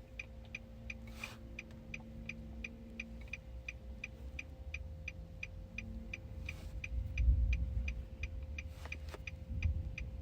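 2013 Nissan Titan's hazard-warning flasher ticking steadily, about three clicks a second, over a low steady hum. A louder low rumble comes about seven seconds in.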